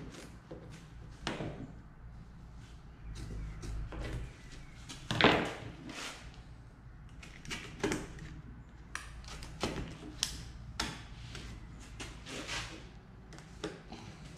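Marine carpet being trimmed along the edge of a plywood boat-floor panel: scissors snipping and crunching through the carpet, with irregular knocks and scrapes of handling against the board, the loudest about five seconds in.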